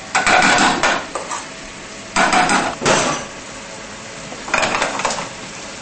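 A metal utensil scraping and knocking inside a stainless saucepan as mashed potato is put in and worked, in four short bursts.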